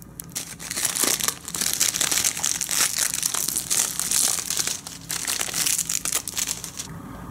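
Clear plastic shrink-wrap being peeled and pulled off a Blu-ray case, crinkling and crackling, loudest in the first five seconds, then quieter handling with a few small clicks.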